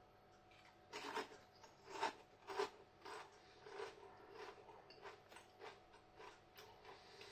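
Someone chewing a crunchy tortilla chip close to the microphone: faint, irregular crunches, stronger in the first few seconds and lighter after.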